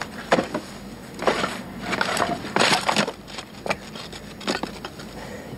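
Wooden boards and beams of collapsed-house rubble knocking, cracking and shifting under a person climbing through them, in irregular knocks about half a second to a second apart.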